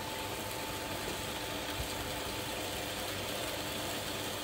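Puffed corn-and-rice snack extruder running steadily as it pushes out a continuous rope of puffed snack: an even machine hum with a constant tone over it.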